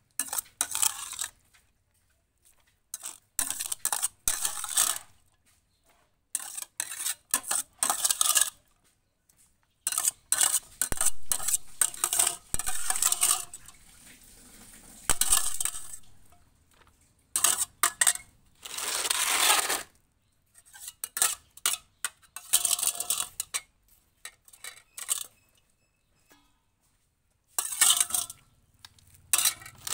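Clinking and scraping of a utensil against food containers, in bursts of one to two seconds with short pauses between.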